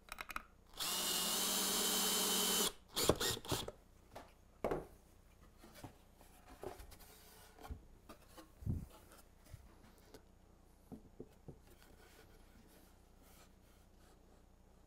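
Cordless drill running for about two seconds as it drives a screw through a figure-eight tabletop fastener into the wooden apron. It is followed by clunks and knocks as the drill is put down and the wooden table base is handled, with a dull thump about nine seconds in as the base is set down on the tabletop.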